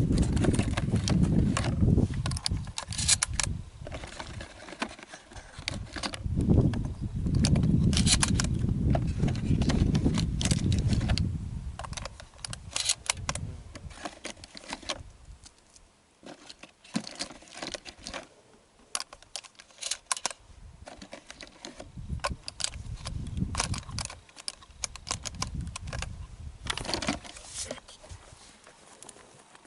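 Scattered metallic clicks and clacks of 12-gauge shells being handled and pushed into a Stevens 320 pump-action shotgun, with a few stretches of low rumble.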